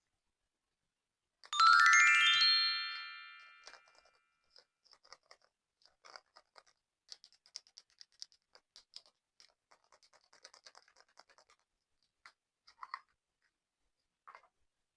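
A rising run of chime-like tones about a second and a half in, ringing on and fading over about two seconds. It is followed by faint, scattered small clicks and crackles of slime being squeezed and stretched.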